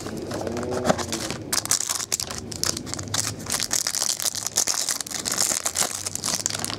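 Clear plastic wrapping crinkling and crackling in the hands as a sealed pack of trading cards is pulled open.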